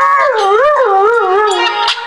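Siberian husky howling along to a song played on a phone, one long wavering howl that rises and falls in pitch over the music.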